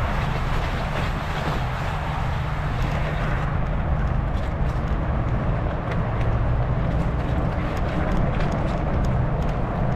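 Steady wind rumble on the microphone over a constant hiss of tyre and road noise from a fat bike rolling along, with no single event standing out.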